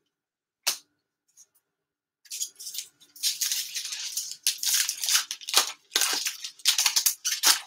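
A hockey card pack being torn open and its cards slid and rustled in gloved hands. A single click comes about a second in, then a quick run of scratchy, crinkly tearing and sliding strokes starts a couple of seconds in and keeps going.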